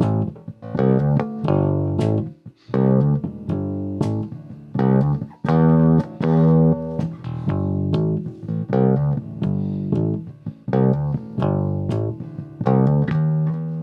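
Electric bass guitar played clean, plugged directly into the Donner PC-02 audio workstation's instrument channel: a run of plucked notes with short breaks between phrases.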